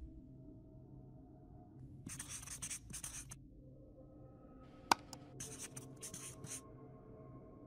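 Felt-tip marker writing, heard as two short runs of scratchy strokes, with a sharp click just before the second run.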